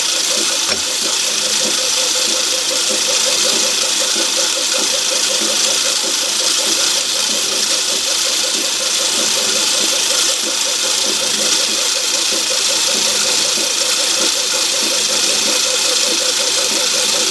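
Myford ML7 lathe running steadily under power while screwcutting a thread: a steady mechanical hum from the motor and gear train, with a fast, even pulsing.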